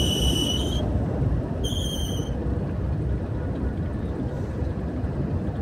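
Car driving through flood water, heard from inside the cabin: a steady low rumble of engine and water washing against the car. A high, steady whistle-like tone sounds twice, the first cutting off about a second in and the second briefly about two seconds in.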